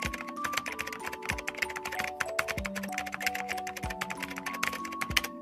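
Rapid keyboard-typing sound effect, dense quick clicks, over light background music with a steady low beat.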